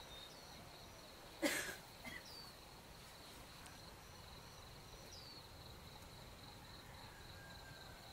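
Faint, steady, high insect chirring outdoors, with a few faint falling bird whistles. About a second and a half in, one short, loud burst of noise.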